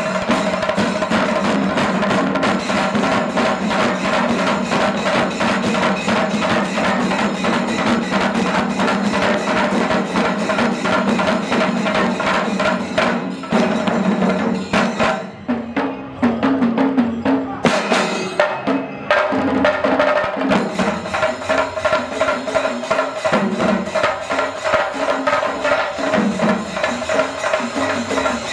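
Chenda melam: a group of Kerala chenda drums beaten with sticks in fast, dense rolls. About halfway through the playing briefly thins, then picks up again in a more spaced-out rhythm.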